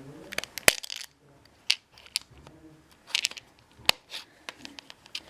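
Hard plastic LEGO pieces of a home-built LEGO pop machine clicking and clattering as it is handled: an uneven string of sharp clicks, with louder single clicks about a second in and again near four seconds.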